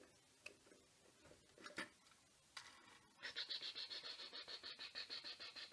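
Faint handling of plastic LEGO pieces: a few soft clicks, then from about three seconds in a fast, steady plastic rattle of about eight ticks a second.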